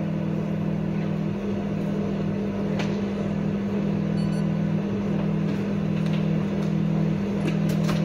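Steady low mechanical hum, with a few faint clicks and taps over it.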